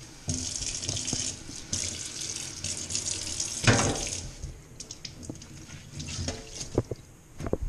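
Kitchen mixer tap running into a stainless steel sink as something is rinsed under the stream. The water stops about four seconds in, followed by scattered light clicks and knocks.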